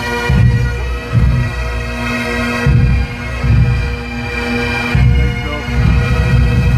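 Bagpipes playing a tune over their steady drone, with a deep irregular thumping underneath.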